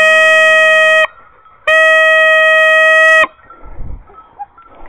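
Two long blasts on a hunter's signal horn, each held on one steady note. The first lasts about a second and the second about a second and a half, with a short gap between them.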